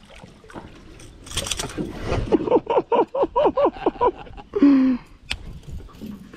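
A man laughing heartily in a run of about eight quick 'ha' bursts. Before it comes a brief rush of noise, and after it a short voiced exclamation and a single sharp click.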